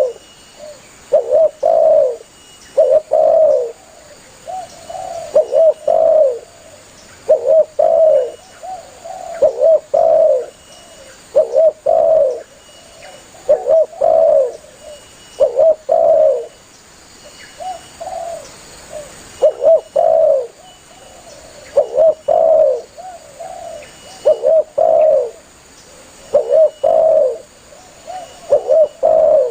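Spotted dove cooing over and over, its loud coo phrases coming about every two seconds, with fainter coos in between.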